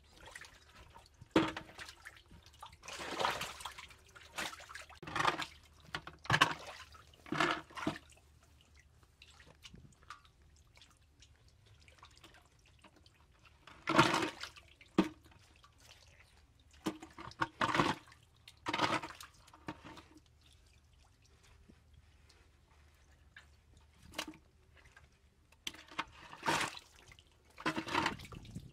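Water splashing and sloshing in short, irregular bursts, with quiet gaps between them.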